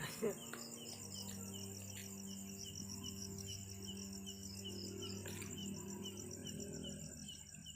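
Night crickets and other insects trilling steadily, with a short chirp repeating a few times a second, over a low, steady musical drone.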